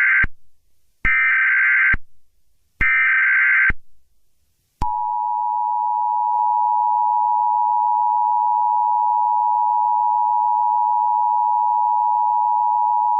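Emergency Alert System SAME header: three bursts of buzzy digital data tones about a second each, the first already under way, then the steady two-tone EAS attention signal from about five seconds in for roughly eight seconds, cutting off sharply at the end. This sequence signals that a spoken emergency alert message is about to follow.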